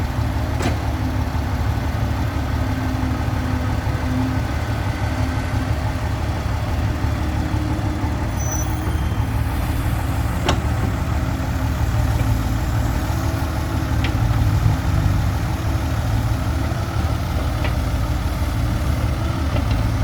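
Heavy diesel machinery engine running steadily at the dig site, with a few brief sharp clicks or knocks, one about ten seconds in.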